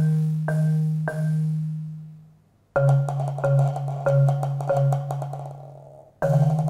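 Prepared marimba played with soft yarn mallets on its low bars: slow, repeated low notes, each ringing on. They come in three groups, the first two dying away to near silence before the next begins, about a third of the way in and again near the end.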